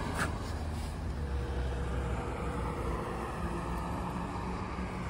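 A vehicle engine idling steadily with a low rumble, and a single faint click about a quarter second in.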